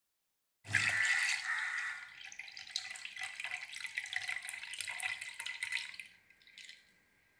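Milk pouring into a stainless steel mixer-grinder jar, a splashing stream that starts suddenly about a second in and tails off near the end.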